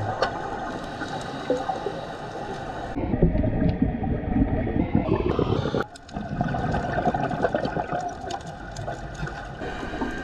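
Muffled underwater rushing of water and scuba exhaust bubbles. It swells about three seconds in and drops out briefly near six seconds.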